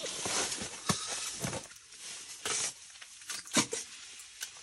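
Scattered small clicks and knocks with a few short rustles, from fishing rods, reels and gear being handled; the sharpest knock comes about three and a half seconds in.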